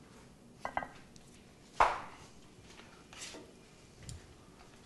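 Kitchen clatter of a metal spatula on a ceramic plate: a short ringing clink just under a second in, then one sharp knock about two seconds in, followed by a few lighter clicks and a brief scrape.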